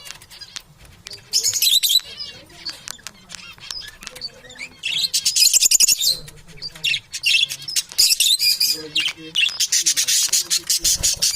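Pet parrots chirping and chattering in repeated bursts of rapid high twittering, with short gaps between bursts and many sharp clicks.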